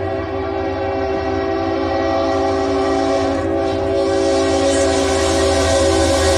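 Freight diesel locomotive's multi-chime air horn held in one long steady blast as the train comes toward the grade crossing, getting louder. The locomotive's engine and wheel noise rise near the end as it draws close.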